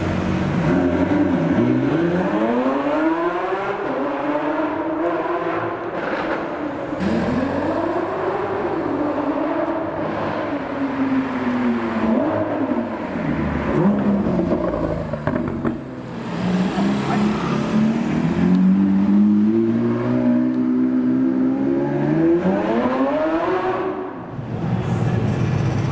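Lamborghini Aventador SVJ Roadster's V12 engine revving and accelerating, its pitch climbing and falling several times with gear changes, and dropping away near the end.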